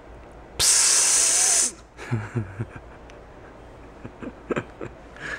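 A loud hiss that starts suddenly and cuts off about a second later, followed by a few short low sounds and soft clicks.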